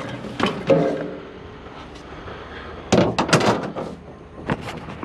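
Knocks and clatter of scrap metal being handled: a few knocks about half a second in, a louder flurry around three seconds in, and one more knock near the end.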